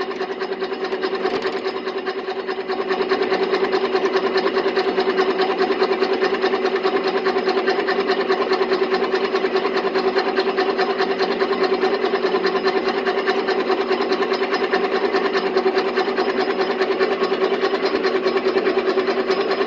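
Old metal lathe running steadily, a constant hum with a fast fine rattle, drilling out a hole in a metal part so it can be tapped for a screw. It gets louder about two and a half seconds in.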